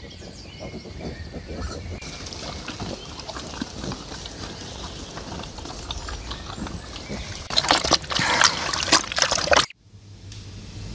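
Pigs grunting while they forage outdoors, with a louder crackling, rustling noise for about two seconds near the end that cuts off suddenly.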